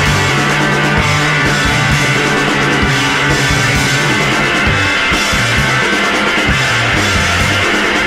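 Loud rock music soundtrack, with a bass line moving between notes under a steady drum beat.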